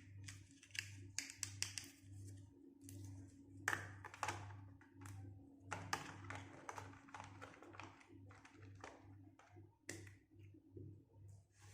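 Irregular light taps and clicks of small plastic toy pieces being handled, over a faint low hum that pulses about twice a second.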